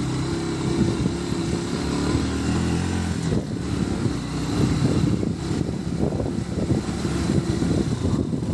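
Motorcycle engine running while riding a rough, unpaved road. The engine note is steady for the first three seconds or so, then turns choppy and uneven.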